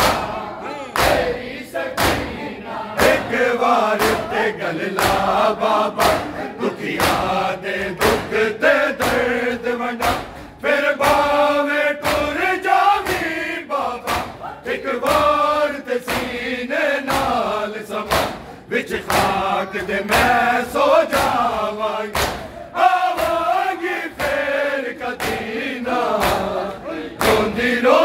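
A group of men chanting a Punjabi noha in unison, with a steady beat of hands slapping chests (matam) keeping time under the voices.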